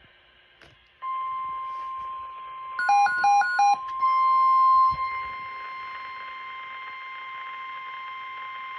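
NOAA Weather Radio warning alarm tone: after about a second of quiet, one steady, continuous pitch comes on and holds. Around three seconds in, three short, loud beeps sound over it, and at about four seconds a second, higher steady tone joins in.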